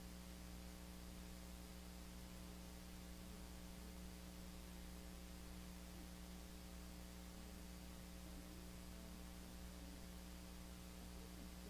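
Steady low electrical mains hum in the recording, with a few faint, wavering voice-like traces far beneath it.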